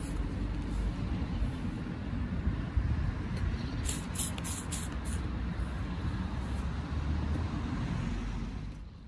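Trigger spray bottle squirting cleaner onto a circuit board in a quick run of short bursts about four seconds in, over a steady low rumble.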